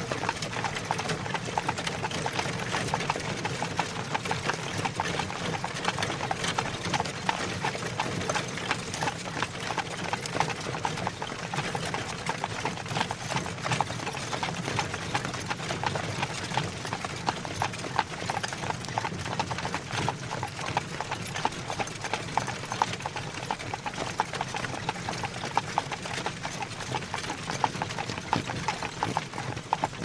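Horse-drawn wagon on the move: horse hooves clip-clopping steadily, with the continuous rolling rattle of the wagon under them.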